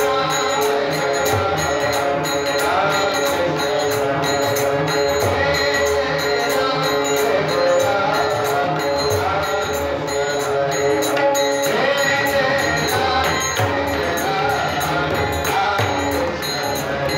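Bhajan music without words: sustained held notes over a steady, fast beat of jingling hand percussion and drum.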